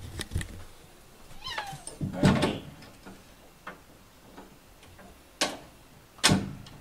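A domestic cat meowing: a falling call about a second and a half in, then a louder call about two seconds in. Two sharp knocks follow near the end.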